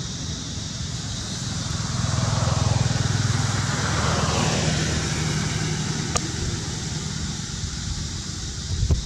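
A motor vehicle passing by: its engine rumble and tyre noise swell over a couple of seconds, then fade away.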